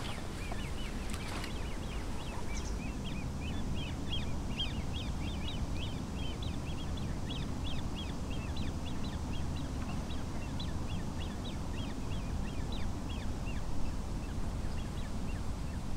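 Birds chirping in many short, quick calls, several a second, over a steady low background rumble.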